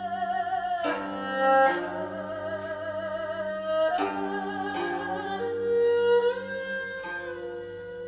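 Instrumental interlude of a Chinese folk-style song: a bowed string melody with wide vibrato on long held notes, over plucked-string accompaniment.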